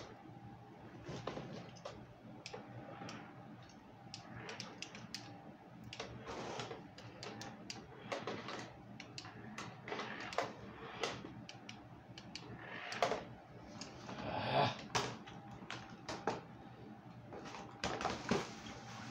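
Toy RC car driving in short spurts, its small motor and plastic gears giving irregular clicks and brief clattering bursts.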